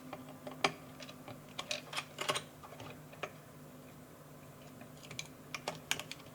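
Light clicks and taps, scattered and in small clusters, of the screen's small connector being worked loose from a radio transmitter's circuit board. A faint steady hum runs underneath.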